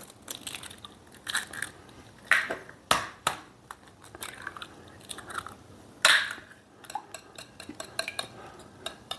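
Eggs being cracked over a stainless steel mixing bowl: a few sharp taps and shell crunches, one egg after another. Near the end, a wire whisk ticks quickly against the bowl as the eggs are beaten in.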